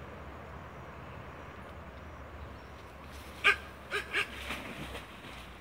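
Three short, sharp barks from an animal about three and a half seconds in, the first the loudest, followed by a couple of fainter calls, over a steady background hiss.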